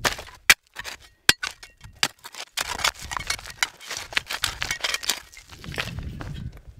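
Digging into rocky, gravelly soil: a few sharp clinks of stones knocking together in the first two seconds, then a run of scraping and crunching as dirt and gravel are raked out.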